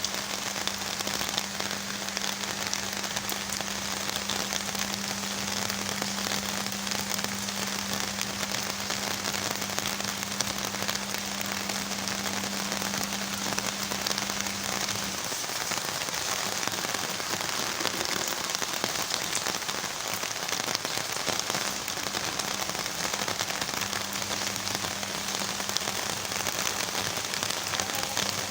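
Heavy rain pouring down, a dense steady patter of drops. A faint steady low hum runs underneath, drops out about halfway through and comes back faintly near the end.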